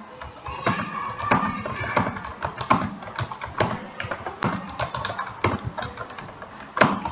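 Fast typing on a computer keyboard: a quick, uneven run of keystroke clicks with a few heavier strikes, the loudest near the end.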